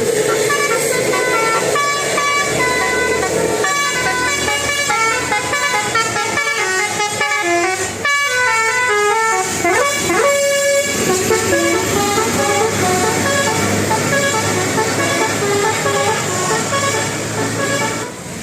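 Bus telolet horn, a Basuri multi-tone melody horn, playing a tune of quick stepped notes, with a sliding note about ten seconds in.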